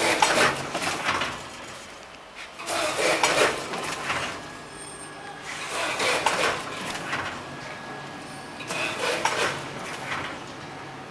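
Automatic potato-chip packing machine, a vertical bagger fed by a 10-head multihead weigher, running through its cycle. Each cycle brings a burst of rattling clatter lasting about a second and a half, as a weighed charge of chips drops into the bag. The bursts come about every three seconds, four times in all, over a steady low machine hum.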